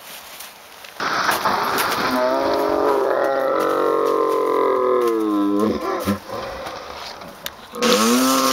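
A person's long drawn-out yell, held for about four seconds and dropping in pitch as it ends, with a second held yell starting near the end.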